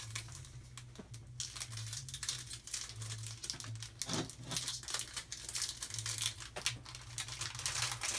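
Foil wrapper of a trading-card pack crinkling as it is handled and pulled open, a dense crackle that starts about a second and a half in.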